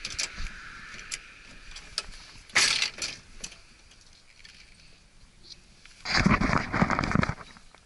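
Handling of a backpack brush cutter in a truck bed: light clicks and clatter, a short scraping rush about two and a half seconds in, and a louder, longer one about six seconds in as the machine is moved. The engine is not running.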